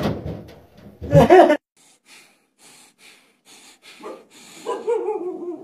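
A brief loud voice about a second in, then a series of short, quick breaths, then a man's muffled voice through a cloth gag in his mouth.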